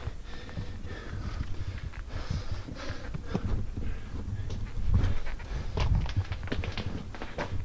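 A climber breathing hard while scrambling up steep rock, with repeated short scrapes and clicks of boots and gloved hands on rock and loose stones, over a low rumble on the microphone.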